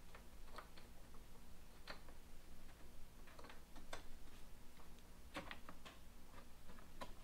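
Faint, irregular clicks and light taps as hands work the plastic sight-glass oil tube down past the motorcycle's frame.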